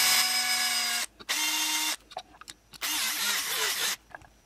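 Electric drill with a larger bit drilling out the mushroomed rivet head on a die-cast toy car's base, run in three short bursts: a steady whine that stops about a second in, a higher-pitched burst just after, and a rougher, noisier burst about three seconds in.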